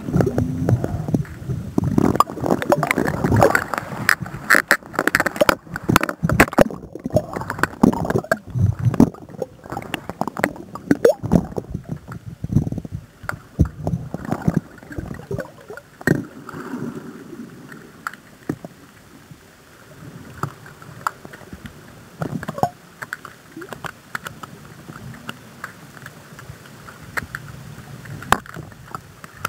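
Underwater sloshing and bubbling of surging seawater picked up by a waterproof digital camera on the end of a landing-net pole, with many irregular clicks and knocks. It is louder in the first half and quieter from about twelve seconds in.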